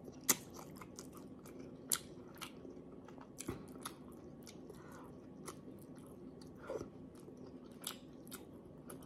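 A person chewing a mouthful of soft vinegar-stewed pompano fish, heard close up, with scattered wet clicks and smacks of the lips and tongue.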